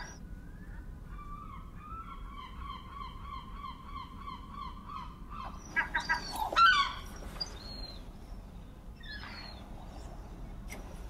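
Gulls calling: a long run of even, quickly repeated yelping notes, about four a second, then a few louder, harsher calls about six seconds in and another a few seconds later.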